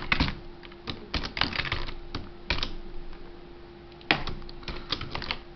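Computer keyboard typing: irregular runs of keystroke clicks, pausing briefly about three seconds in before resuming. A faint steady hum runs underneath.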